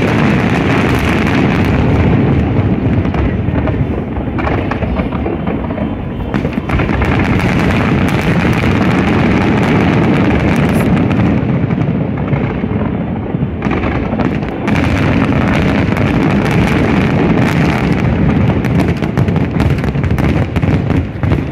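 Fireworks shells bursting in rapid succession: a dense, nearly unbroken barrage of booms and crackles that eases briefly twice.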